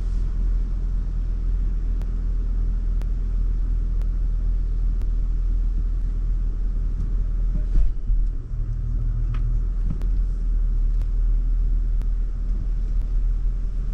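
Land Rover rolling slowly in reverse with its engine running low and steady, and a faint tick about once a second from underneath, from a stone caught between a brake disc and its brake shield. A short louder knock comes a little before halfway.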